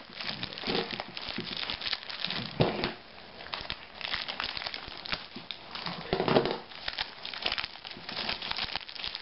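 Plastic courier bag crinkling and rustling as it is handled and pulled at, a steady run of crackles with louder rustles about two and a half and six seconds in.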